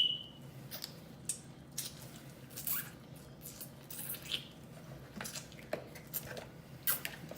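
Close-up eating sounds from a seafood boil: irregular wet lip smacks, sucking and chewing. A sharp click with a short ring opens it.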